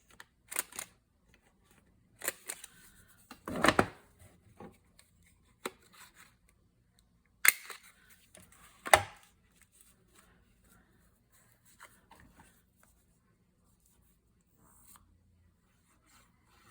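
Paper and card being handled on a worktable: short rustles and slides, with a couple of light knocks on the table, in scattered bursts during the first half and only faint ticks after.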